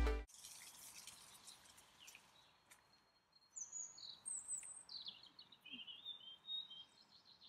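Music cuts off at the very start, then faint outdoor ambience with songbirds singing high chirps and short trills from about three and a half seconds in.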